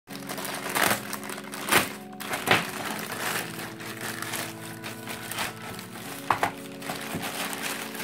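Plastic poly mailer bag being crinkled and torn open by hand, a continuous rustle with a few sharper crackles.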